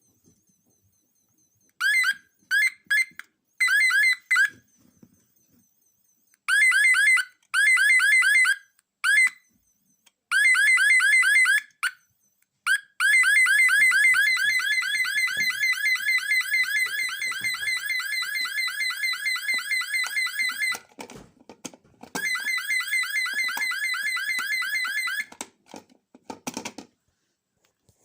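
Electronic fire alarm sounder giving a fast pulsing electronic tone, switched on and off in short bursts at first. It then sounds for about eight seconds and again for about three, with a couple of clicks or knocks in between.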